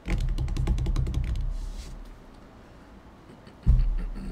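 A rapid run of sharp clicks or taps over a low rumble for about a second and a half, fading out, then a single dull thump near the end.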